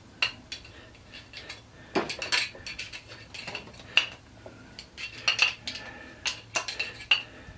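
A screwdriver scraping and clinking inside a small electric motor's metal end cap while the cast end caps are handled and set down on the workbench: irregular sharp metallic clicks and clinks, several to a second at times, with brief ringing.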